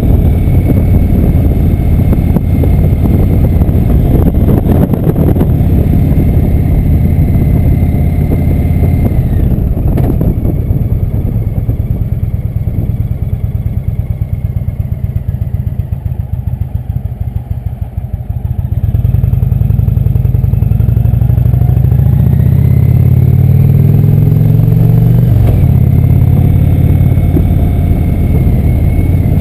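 Indian motorcycle's V-twin engine running on the road. About a third of the way in it eases off and drops to a low, pulsing beat as the bike slows for a stop. Then it pulls away again, rising in pitch through the gears with one upshift near the end.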